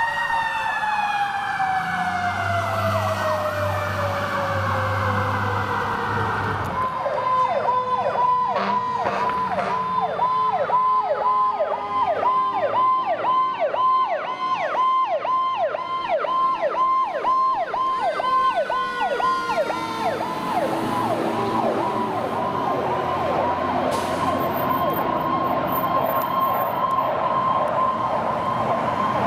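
Fire truck sirens. First a siren winding slowly down in pitch over the truck's diesel engine; then, about seven seconds in, an electronic siren sweeping up and down quickly and steadily in a yelp, which turns to a faster warble in the last third.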